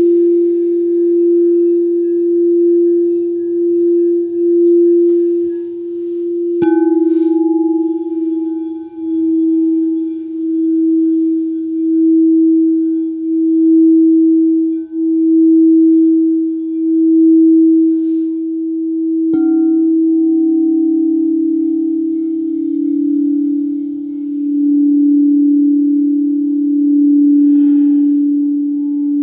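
Singing bowls ringing with a steady, slowly pulsing low hum. A bowl is struck about seven seconds in and another, slightly lower, about nineteen seconds in, each strike adding a bright overtone that fades back into the sustained tone.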